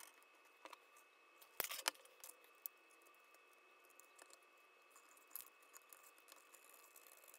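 Near silence, with a few faint clicks and taps of a steel wire pushrod and 3D-printed plastic parts being handled and fitted to a servo. The loudest are two sharp clicks between one and a half and two seconds in.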